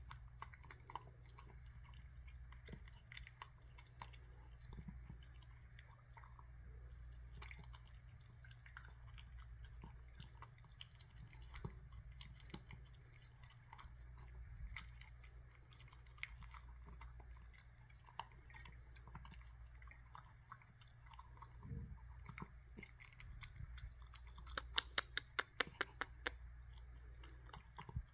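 A small dog faintly chewing and munching chunks of yellow apple in a fruit salad from a ceramic bowl, with scattered small crunches and clicks. Near the end a quick run of about a dozen sharp clicks is the loudest sound.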